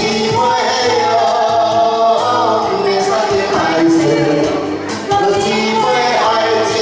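A man and a woman singing a pop duet into handheld microphones over backing music with a steady beat.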